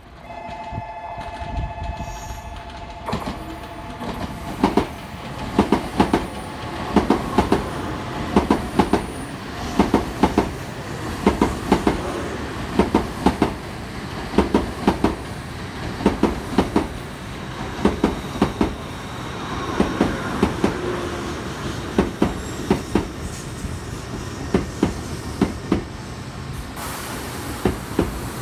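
Shinkansen N700-series high-speed train pulling into a station and running past at slowing speed: a steady rolling rumble with regular clusters of sharp wheel clicks as each car's bogies cross rail joints and points, the clusters coming about once every second or so. A steady two-note tone sounds for the first couple of seconds.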